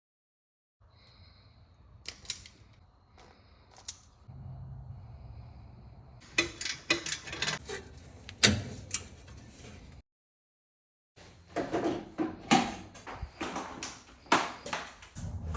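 Garage door and its electric opener running: a steady low motor hum with repeated clanks and rattles from the moving door, broken by two abrupt cuts to silence.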